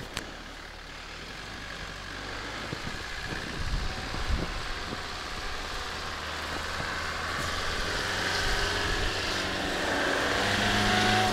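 Nissan Terrano's TD27 turbodiesel engine working hard as the SUV drives at a snowdrift, growing steadily louder as it comes closer. Near the end the engine note drops as the vehicle bogs down.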